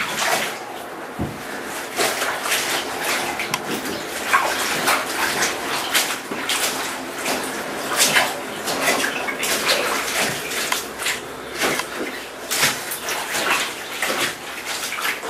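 Water sloshing and splashing in a bathtub as a long pole repeatedly plunges into and stirs a cotton tent flysheet soaking there, in irregular swishes.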